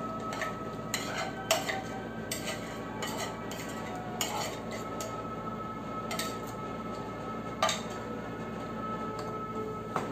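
A spoon scraping and clinking against a plate and bowl as leftover rib bones are cleared off, with scattered light clatters; the sharpest knocks come about a second and a half in and again near eight seconds.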